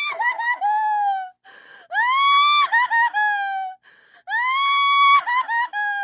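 A woman crying hard: three long, high wails, each breaking into quick stuttering sobs, with a short gasping breath in between.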